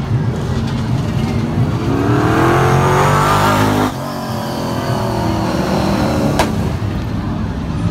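Late model stock car V8 engines at racing speed passing close by. The engine note rises and grows loudest about three and a half seconds in, then drops off suddenly, and another car goes by soon after with a falling note.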